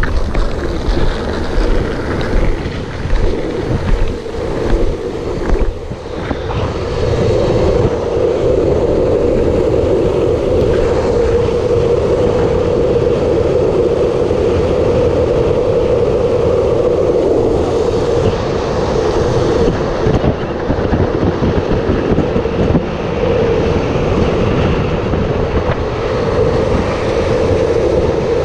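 Longboard wheels rolling fast on asphalt down a hill, under heavy wind noise on the microphone. The sound is uneven and gusty for the first few seconds, then settles into a steady rushing drone.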